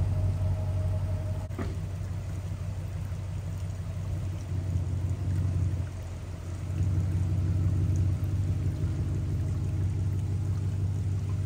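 Range Rover's supercharged V8 with the mufflers deleted, idling with a low, steady exhaust rumble that dips for a moment about halfway through. Rain hisses on the wet road underneath.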